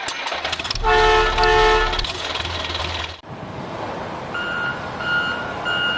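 A vehicle horn toots twice in short blasts, then a reversing alarm begins beeping steadily, about one beep every 0.7 seconds.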